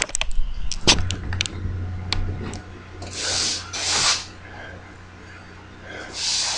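Clicks and knocks of objects being handled on a workbench, then a few short hissing puffs, over a steady low hum.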